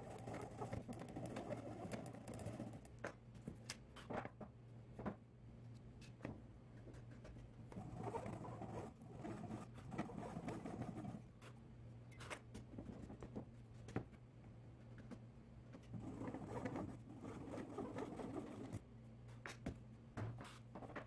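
Flush-cut pull saw trimming walnut splines flush at a box's mitered corner: quick rasping saw strokes in three spells, with light clicks and knocks between them.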